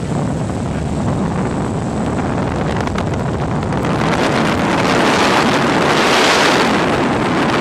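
Cabin noise of a 1946 Ercoupe 415-C in cruise flight: the steady drone of its engine and propeller under a loud rush of wind, which swells to its loudest about six seconds in.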